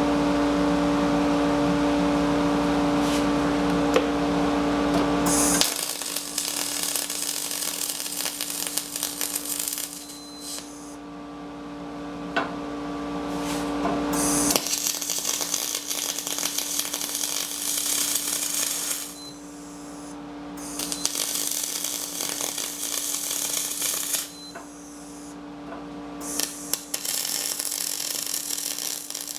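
Aluminum MIG welding with a spool gun: the arc hissing and crackling in runs of a few seconds, broken by short pauses, over a steady hum.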